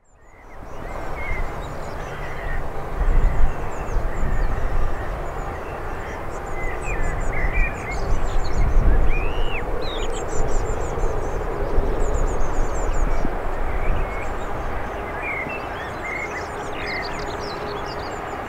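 Small birds chirping again and again over a steady low rumble of airfield and jet-engine noise, fading in at the start.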